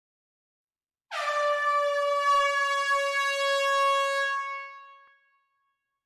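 Air horn giving one long blast in a close hall: a single held note with many overtones that starts abruptly about a second in, holds steady for about three seconds, then dies away.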